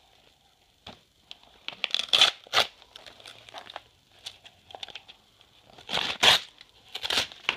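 Sheets of a paper letter crinkling and tearing in a baby's hands, in several short, sharp rustles, loudest about two seconds in and again about six seconds in.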